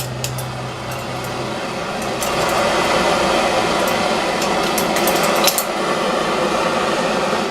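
Hand-held propane torch burning with a steady hissing rush, with a few scattered clicks; it cuts off suddenly near the end.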